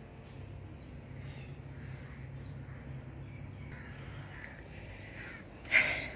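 A crow caws once, short and harsh, near the end, over a steady low hum.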